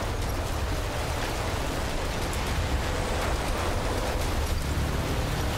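Tornado wind blowing past at close range: a steady, unbroken rush of noise with a heavy low rumble.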